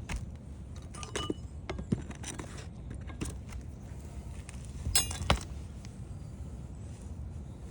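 Scattered sharp clicks and metallic clinks from hand tools working asphalt roof shingles, with a louder ringing clink about five seconds in, over a steady low background rumble.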